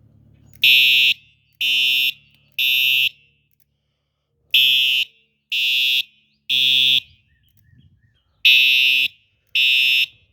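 Simplex fire alarm horn sounding the temporal-3 evacuation code: three loud half-second blasts, a pause, then the three again, repeated three times.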